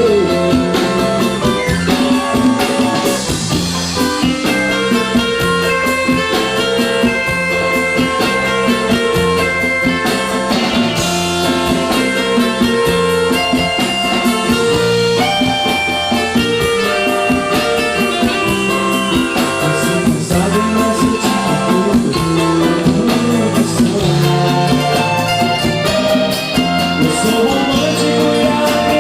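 Live band playing: guitar over a bass line and a drum kit keeping a steady beat.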